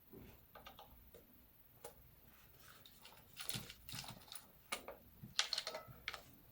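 Small metal screws clicking and rattling as they are tipped out of a plastic ST-16 controller housing and handled: faint, irregular ticks, with clusters of rattles in the second half.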